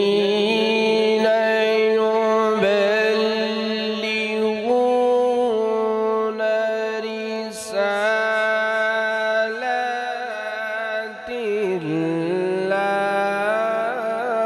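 A man reciting the Quran in melodic tilawat style, drawing out long held notes with ornamented turns and shifts in pitch.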